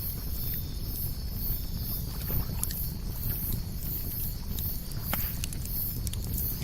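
Campfire crackling with a few sharp pops, over a steady low rumble. A high, faint pulsing sound repeats about twice a second throughout.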